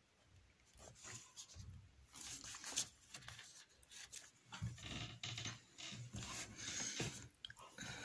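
Faint, irregular scratching and rustling of a pen and hand moving on a sheet of paper, as a note is written.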